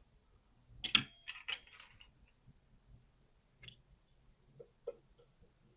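Metal lock pick clicking and scraping against the warding and pins inside a pin-tumbler lock cylinder: a cluster of sharp metallic clicks about a second in, then a few scattered ticks.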